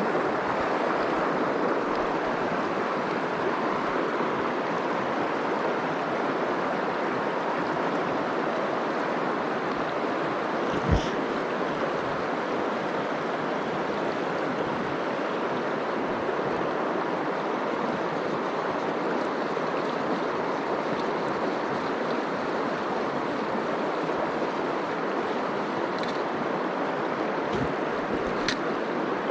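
A river rushing steadily over its bed, an even, unbroken water noise, with one short knock about a third of the way in.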